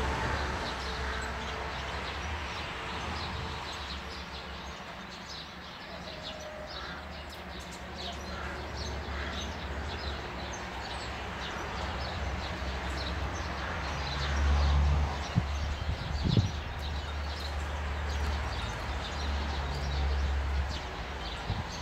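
Birds chirping, many short high chirps scattered throughout, over a low rumble that swells about two-thirds of the way in.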